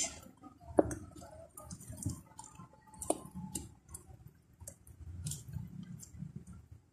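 Sticky glue slime being kneaded and pulled by hand, giving a scatter of soft, irregular clicks and pops.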